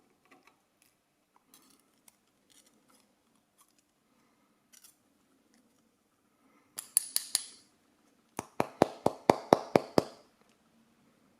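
Sharp metallic taps on the emptied lock cylinder housing, knocking to free springs stuck in the pin chambers: four quick taps with a bright ring about seven seconds in, then a run of about ten evenly spaced taps, roughly six a second. The springs stay lodged in the chambers.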